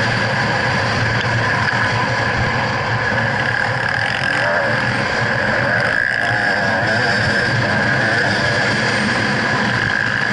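2011 GasGas EC300 two-stroke enduro motorcycle engine running under throttle on the move, its pitch rising and falling a few times as the throttle is worked, over a steady rush of wind on the microphone.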